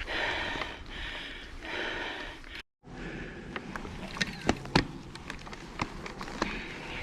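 Heavy, hard breathing from a mountain biker, about one loud breath a second. After a brief cut-out the breathing gives way to a few sharp clicks and knocks from the Orbea Occam mountain bike rattling over rough trail, the loudest about four and a half seconds in.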